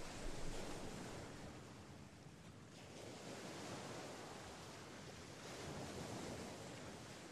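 Sea waves washing onto a sandy beach: a steady surf noise that eases a little about two seconds in, then swells again.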